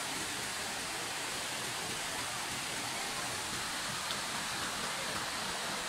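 River water rushing and cascading over boulders, a steady, even hiss that does not let up.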